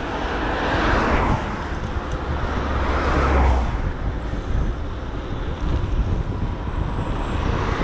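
Motor traffic passing the bike on a main road: two vehicles go by, swelling and fading about one and three seconds in, with a steady low wind rumble on the microphone underneath.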